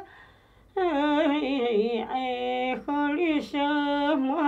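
A 79-year-old woman singing a traditional Naxi folk song solo, in short phrases of held, wavering notes. She comes in about a second in after a short pause for breath, with brief breaks between phrases.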